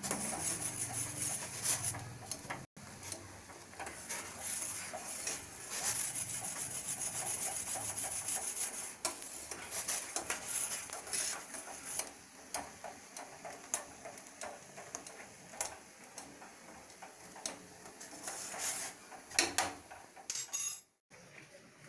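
Tea boiling in a stainless-steel saucepan, bubbling and crackling, with a metal spoon stirring and scraping against the pan.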